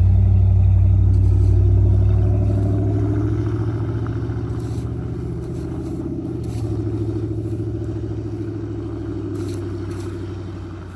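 Motor vehicle engine running close by, loudest at first and then slowly fading as the vehicle pulls away.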